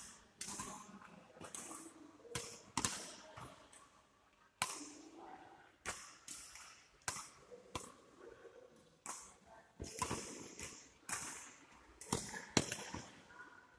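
Badminton rally: rackets striking a shuttlecock with sharp cracks about once a second, with players moving on the court in between.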